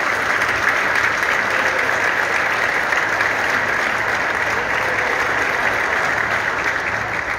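Audience applauding: a large seated crowd clapping steadily, beginning to fade right at the end.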